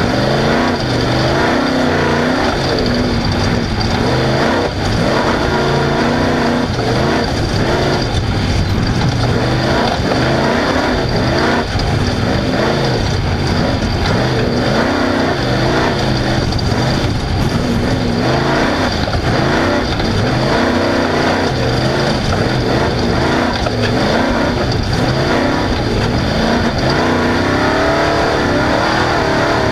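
Off-road race vehicle's engine running hard, its pitch climbing and dropping again and again as it revs up and backs off.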